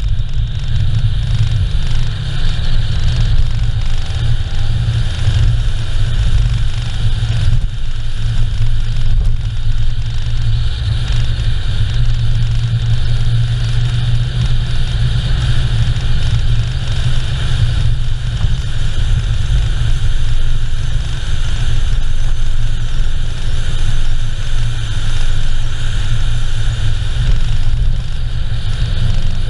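Steady, loud low rumble of a car driving along an asphalt road. Wind and tyre noise dominate, picked up by a camera mounted on the outside of the car.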